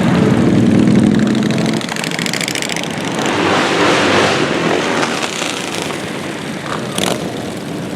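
Several motorcycle engines running and passing one after another, one swelling and fading again around the middle.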